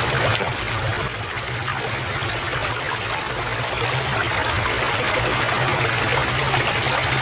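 Stream water flowing and trickling in a steady, even rush, with a steady low hum underneath.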